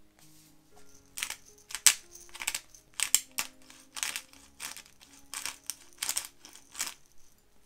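Pepper mill grinding black pepper, twisted in a run of short grinding strokes about two a second, starting about a second in and stopping near the end. Soft background music underneath.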